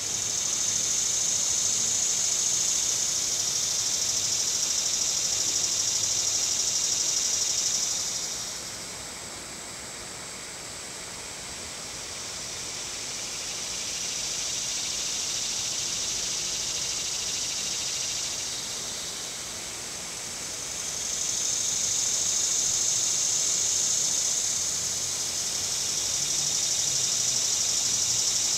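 Outdoor insect chorus: a high, steady buzzing that swells and fades in long waves, loud at first, dropping away about eight seconds in, and building back up in the last third.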